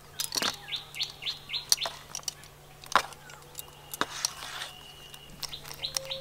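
Small birds chirping in quick runs of short falling chirps, with a few sharp clicks of a spoon against a steel bowl as thick potato-and-sago batter is stirred.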